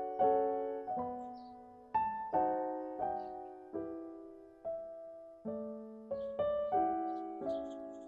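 Gentle background piano music: single notes and chords struck one after another, each left to fade.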